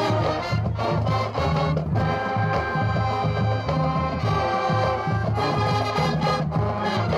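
High school marching band playing a stand tune: brass holding and changing chords over a steady, repeating low beat.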